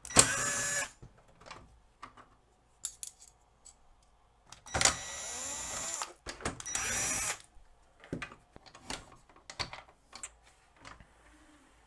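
Electric screwdriver whirring in three short bursts while backing out the screws of the CD tray's brackets, the middle burst the longest. Small clicks and knocks of parts being handled come in between.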